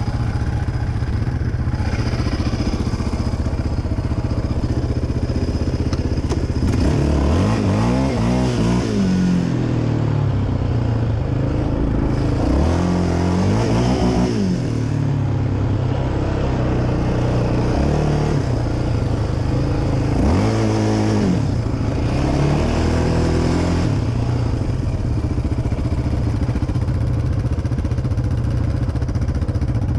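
Quad bike (ATV) engines running with a steady low drone, revving up and back down in pitch several times through the middle of the stretch.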